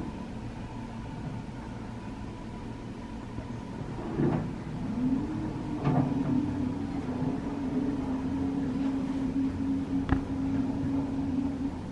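Robotis hotel delivery robot's drive motors whirring as it pulls away: a whine that rises in pitch about four seconds in, then holds steady. A few short knocks sound over it.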